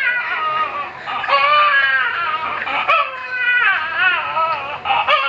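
A man wailing without words in long, high-pitched, wavering notes.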